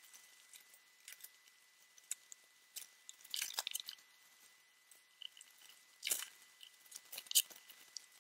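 Faint, irregular crackles, clicks and crinkly rustles of hands fitting spars into the routed slots of a foam flying wing. There is a longer crunchy rustle about three and a half seconds in and sharp crackles near six and seven seconds.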